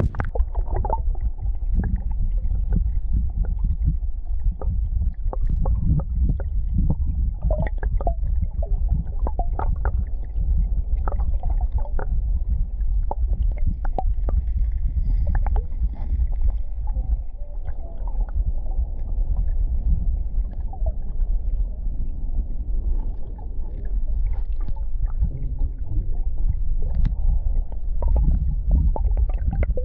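Muffled underwater-sounding water noise: a steady deep rumble and gurgling, dull with no highs, with many small clicks and ticks scattered through it.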